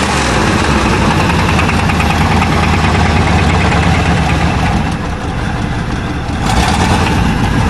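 1988 Chevrolet pickup's engine idling with a steady knock, the knocking that gives the truck its nickname 'the knocker'. It eases slightly about five seconds in, then picks up again.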